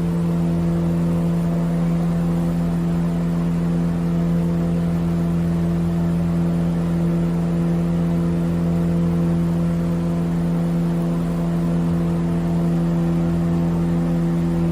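A motor running at a steady speed: a constant hum holding one pitch.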